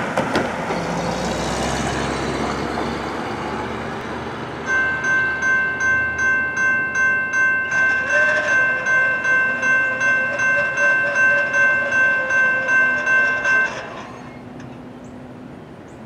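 A pickup truck drives over the grade crossing at the start, its noise fading away. About five seconds in, the railroad crossing bell begins ringing, a steady ding repeating two to three times a second, and it stops about nine seconds later as the crossing gates come down for the approaching train.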